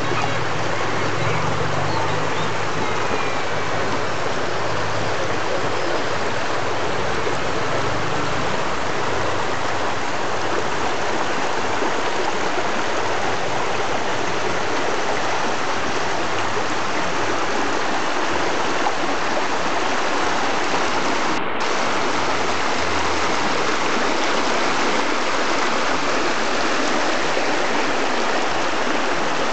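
Shallow river water rushing and splashing over flat rock slabs: a steady, loud rush of flowing water.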